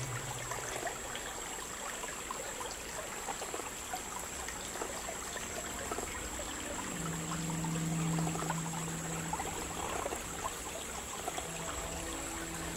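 Tropical forest ambience: an even rushing hiss like running water, scattered with small crackles, over a thin steady high tone. A faint low hum comes in about seven seconds in.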